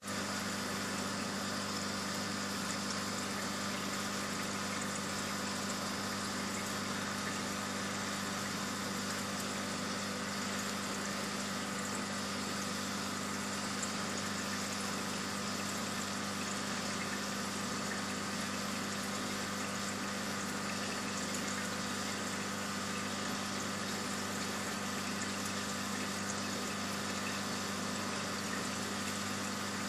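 Steady electric hum of a saltwater aquarium's pump, a low hum with an even hiss of moving water over it, unchanging throughout.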